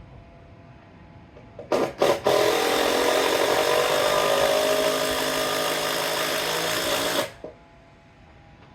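A handheld electric power tool is blipped twice, then run under load for about five seconds, its pitch sagging slightly before it stops abruptly.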